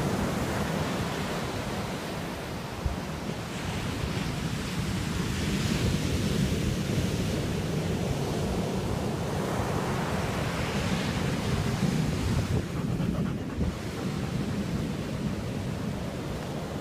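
Ocean surf washing onto the beach, swelling a couple of times as waves break, over a steady low rumble of wind on the microphone.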